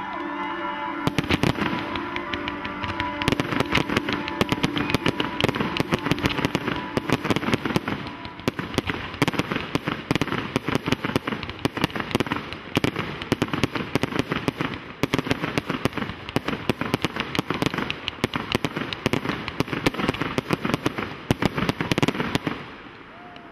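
Fireworks firing in a rapid, continuous barrage of sharp reports and crackles, several a second, cutting off suddenly near the end. Music plays underneath at the start.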